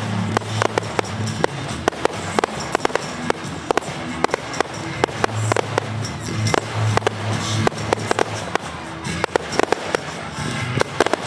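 Fireworks display: a rapid, irregular string of sharp bangs and pops, several a second, over steady background music.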